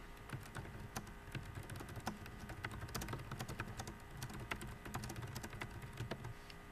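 Typing on a computer keyboard: a fast, irregular run of key clicks that stops shortly before the end, over a faint steady hum.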